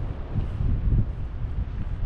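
Wind buffeting the microphone: a low rumble that swells and fades in uneven gusts.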